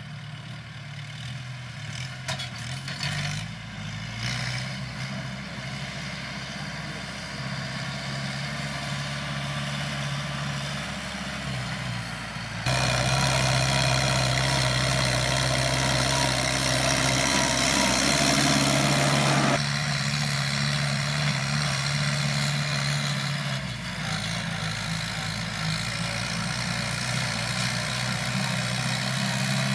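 Kubota M7040 tractor's four-cylinder diesel engine running steadily under load while it pulls a disc plough through dry soil. About a third of the way in it turns much louder, with a harsh hiss over the engine, for about seven seconds, then drops back.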